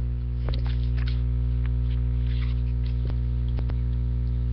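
Steady electrical mains hum in the recording, with faint scattered clicks and rustles of a stack of Magic: The Gathering cards being flipped through by hand.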